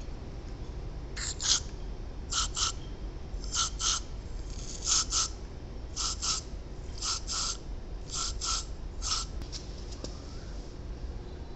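Aerosol spray can with a straw nozzle fired into a small engine's carburetor in short hissing double bursts, about one pair a second, stopping near the end. The jets are being blown through to check that they are clear.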